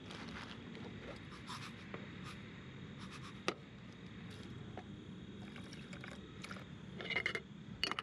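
Plastic bag rustling and light scraping as rice is tipped into a small stainless steel pot. A sharp tick about three and a half seconds in, then a cluster of metal clinks near the end as the lid is set on the pot.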